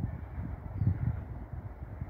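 Wind buffeting the microphone in uneven low gusts, strongest just after the start and about a second in.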